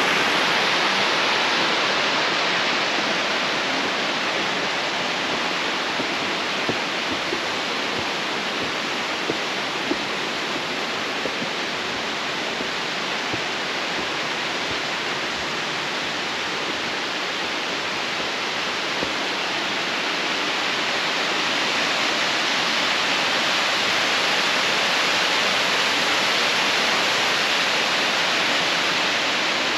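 Water rushing down a rocky mountain stream with small waterfalls, a steady dense hiss that swells a little near the end.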